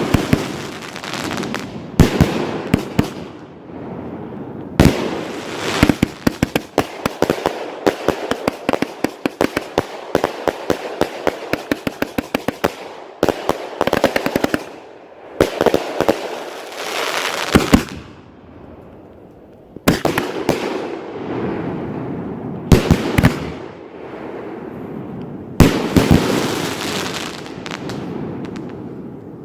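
Svea Ragnarök firework going off: a run of sharp shots and loud bangs, with a long stretch of dense rapid crackling about six to thirteen seconds in. Later come several hissing bursts, each carrying more bangs.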